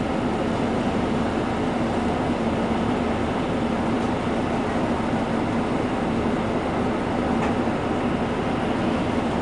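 City bus engine idling, heard from inside the bus: a steady low drone with a constant hum.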